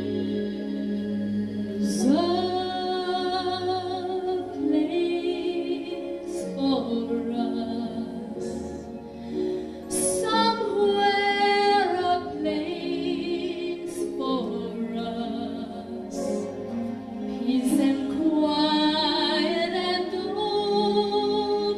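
A woman singing a slow ballad live into a handheld microphone, holding long notes with vibrato, over steady instrumental accompaniment.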